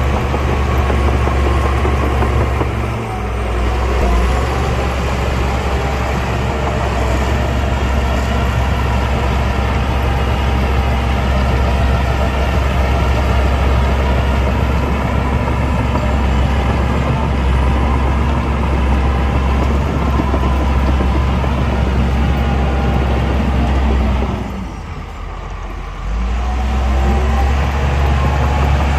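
Heavy diesel engine of earthmoving machinery running steadily under load. It eases off briefly about three seconds in, and again for about two seconds near the end before picking up.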